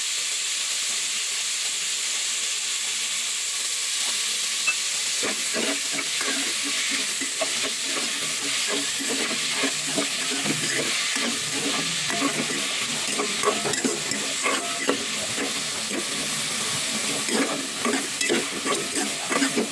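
Chopped carrots, potatoes and onion sizzling with a steady hiss in a metal pot. From about five seconds in, a metal spatula scrapes and knocks against the pot as the vegetables are stirred, busier and louder near the end.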